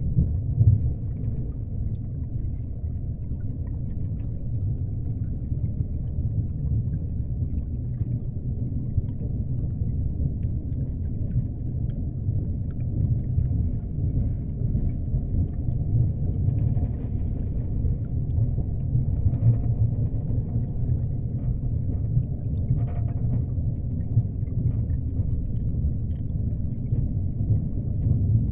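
Deep-ocean underwater ambience: a steady, deep rumble that swells and ebbs slightly, with only faint flickers of higher sound above it.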